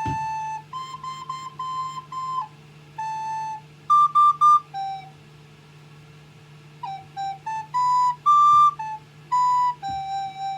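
A child playing a simple tune on a recorder: clear held notes and quicker short ones, with a loud run of short high notes about four seconds in and a pause of about a second and a half after it.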